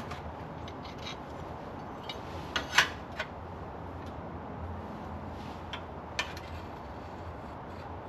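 A few light clicks and taps from tools and pieces of steel angle iron being handled while 45-degree cuts are marked out, the sharpest a little under three seconds in, over a steady low hum.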